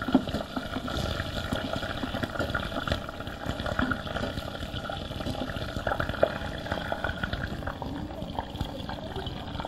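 Monarda leaves heating in oil in a saucepan, giving a soft, steady bubbling with small crackles.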